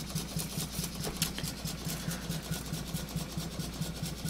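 Stuart No. 4 model steam engine running steadily under live steam at very low pressure, about 2 psi, with a quick, even rhythmic beat from its cylinder and crank.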